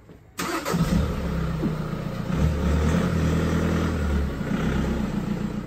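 MK7 VW Golf's engine starting about half a second in, then running steadily at idle.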